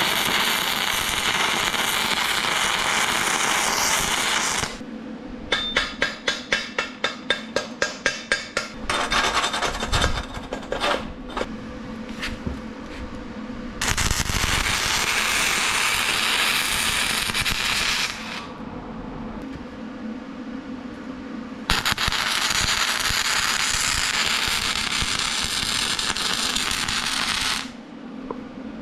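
MIG welder arc crackling and sizzling in three long beads, with short pauses between them. In the first pause there is a run of sharp taps, about four a second, then scattered clicks. A faint steady hum runs underneath.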